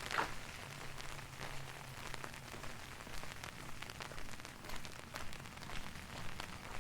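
Rain falling and dripping onto hard surfaces, with many irregular drop splashes, one louder splash just at the start.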